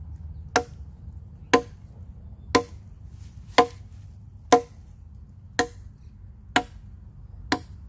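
Village Chandong 10-inch parang chopping into a log: eight sharp strikes of the blade into the wood, evenly spaced about one a second.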